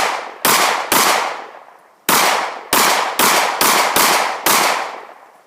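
Gun firing eight shots in quick succession at uneven intervals, each followed by a fading echo, as if the magazine is being emptied.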